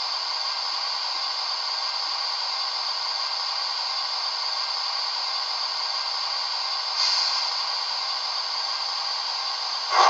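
Digital steam sound from the DCC sound decoder of a Hornby LMS 'Duchess of Montrose' model locomotive standing still: a steady hiss of a simmering engine. About seven seconds in a louder hiss comes in suddenly and slowly fades, and right at the end there is a short loud burst of sound.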